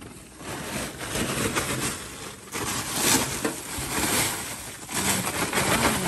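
Snow-covered plastic tarps over a barbecue grill rustling and crunching as they are handled, with wind buffeting the microphone.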